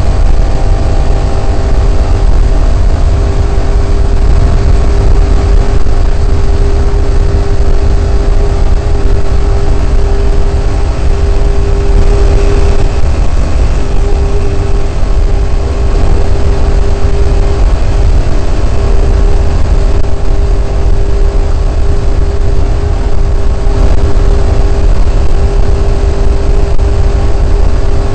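Studebaker race car's engine running at a steady cruising speed, heard loud from inside the cabin: one steady drone that does not change in pitch, over a heavy low rumble.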